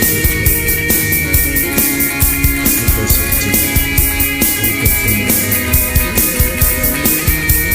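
Rock-pop song playing, with a steady, even drum beat under sustained instrument tones.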